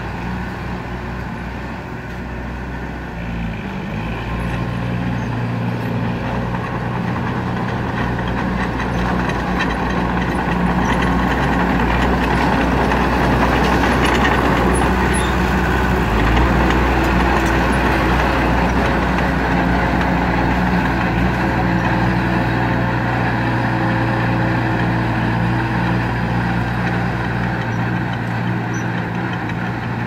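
Komatsu crawler bulldozer's diesel engine running steadily as the machine works, growing louder as it comes close about halfway through, then easing off as it moves away.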